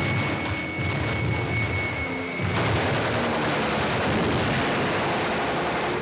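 Rapid heavy machine-gun fire from a bomber's turret gun over aircraft engine drone, in a wartime air-combat soundtrack. About two and a half seconds in it turns denser and harsher as the enemy fighter is hit and explodes.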